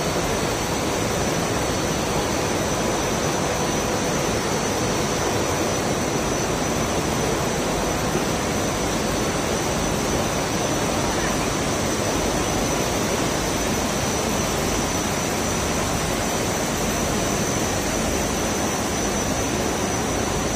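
Steady machine noise of a running milk bottling line, its conveyors and packing machines giving an even hum with a faint high whine.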